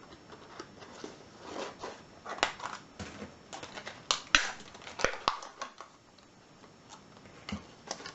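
Padlock's plastic packaging being handled: a run of irregular crackles and sharp clicks, busiest from about two to five seconds in, then one more click near the end.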